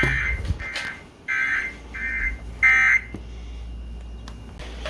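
EAS SAME end-of-message data bursts from a weather-radio relay: about six short, warbling digital tone bursts in quick succession, stopping about three seconds in. The doubled run of bursts fits the same warning being relayed more than once.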